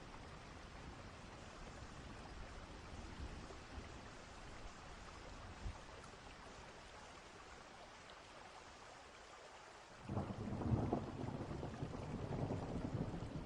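Distant thunderstorm ambience: steady rain, then a roll of thunder that rises suddenly about ten seconds in and rumbles on.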